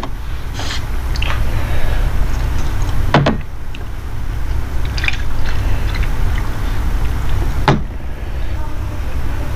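A person eating South Indian food (idli, sambhar and rice): chewing and wet mouth sounds, with a sharp click about three seconds in and another near eight seconds, over a steady low hum.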